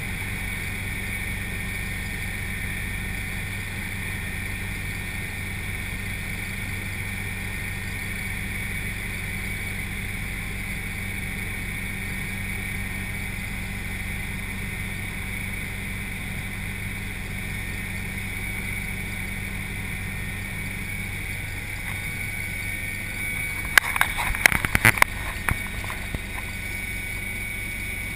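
Helicopter cabin noise heard from inside: the steady drone of the engine and rotor with a constant high whine. A short burst of sharp clicks and knocks comes near the end.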